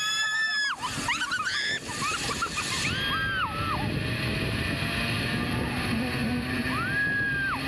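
A zipline rider screaming in high, drawn-out cries as they launch off the platform and speed down the cable, with more shrieks a few seconds apart. Underneath runs a steady rush of wind on the microphone from the speed of the ride.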